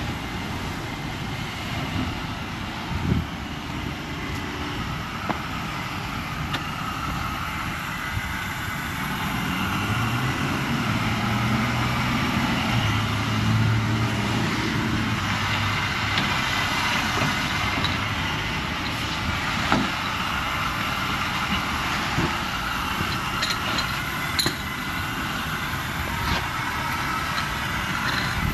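Steady motor-vehicle noise, with a deeper engine hum that grows stronger for several seconds around the middle.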